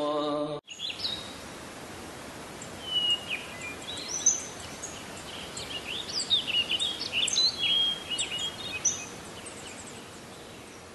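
A chanted Quranic verse ends about half a second in. Then many birds chirp over a steady hiss of outdoor ambience, with short rising and falling calls coming thick and fast through the middle.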